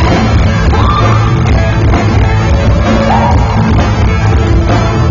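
Live band playing a loud, bass-heavy rock-pop song on electric guitars, keyboard and drums.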